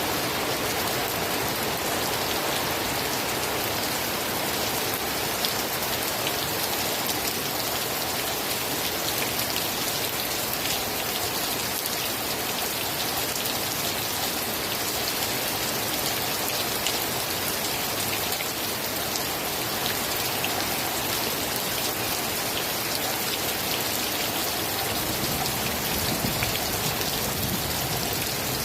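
Steady rain falling and pattering on a surface, an even hiss with scattered individual drop ticks, holding at a constant level.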